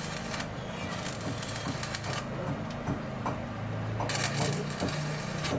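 Building-site work noise: irregular knocks and scraping, with short bursts of rough noise, over a steady low hum.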